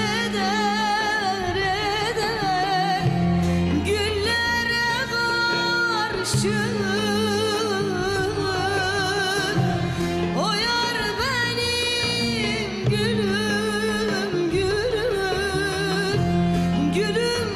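Turkish folk song (türkü): a woman singing a wavering, ornamented melody over instrumental accompaniment.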